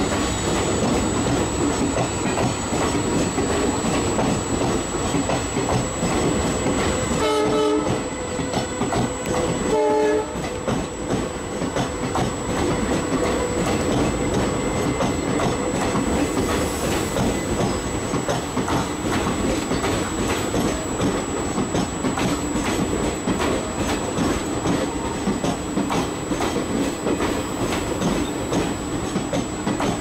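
Two passenger trains' coaches rolling past close by on adjacent tracks: a steady rumble with wheels clicking over the rail joints. A diesel locomotive horn sounds two short blasts, about seven and ten seconds in.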